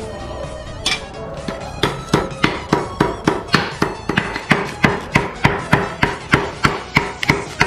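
A cleaver chopping on a chopping board, mincing goose meat. It strikes now and then at first, then from about two seconds in settles into a quick steady rhythm of about three chops a second, over background music.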